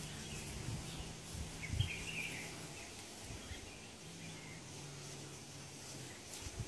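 Asiatic black bear growling low and steady in two long stretches with a short pause between, warning the other bears to back off. Faint bird or insect chirps sound in the background.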